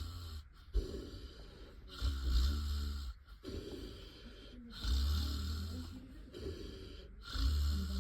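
A person snoring heavily. There are deep, low, fluttering snores on the in-breath about every two and a half seconds, three of them in full, each followed by a softer, wheezy out-breath.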